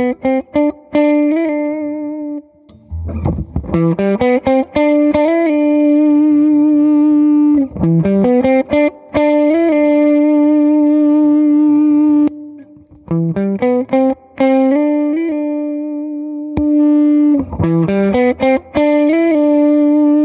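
Electric guitar played through the Electra MPC-12 compressor module: single-note phrases that run up into a long held note, sustaining for several seconds, about four times over with slight bends. The compressor squashes the attack and holds each note.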